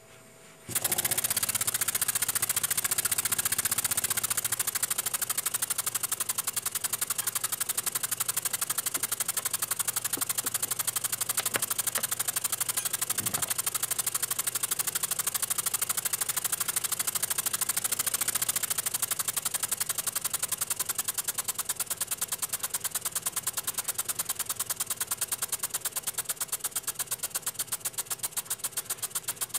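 Small double-acting oscillating-cylinder model steam engine running on compressed air: a very fast, even chuffing of air exhausting from the rocking cylinder with a hiss. It starts about a second in, then gradually slows and gets quieter over the last several seconds.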